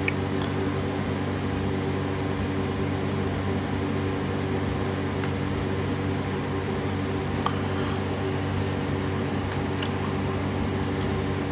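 A steady machine hum, a fan-like drone holding several low tones under a hiss, with a few faint clicks.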